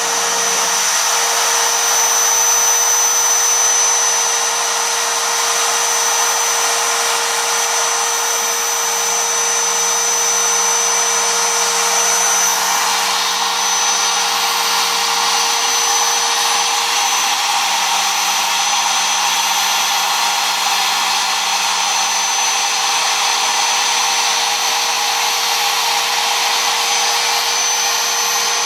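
Mostly 3D-printed CNC machine running: a loud, steady motor whir with a few steady whining tones on top that shift in pitch now and then as the stepper motors change speed.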